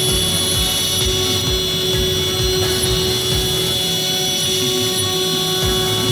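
CNC router spindle running with a steady whine, over a regular low beat of about two thumps a second.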